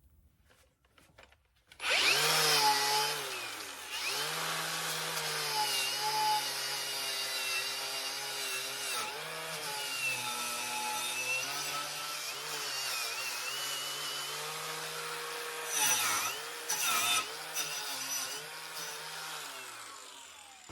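Electric power tool switching on about two seconds in and running on with a hissing scrape, its motor pitch sagging and recovering as it is pressed against the work, with two sharp dips near the end: rust being cleaned off a VW Beetle steel brake pedal.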